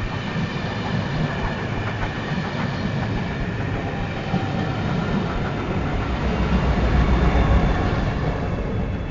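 Steam-hauled passenger train running past close by: a steady rumble with wheels clattering on the rails, growing louder about seven seconds in and easing off near the end.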